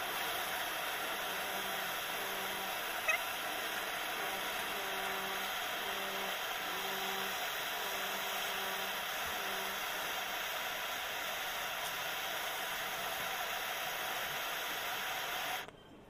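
Flame of an LPG gas-can torch hissing steadily as it heats the leaking copper U-bends of a window AC coil for brazing; the hiss stops abruptly near the end.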